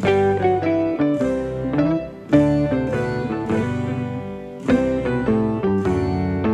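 Background instrumental music: a light melody of short, quickly repeating plucked notes over a steady lower accompaniment.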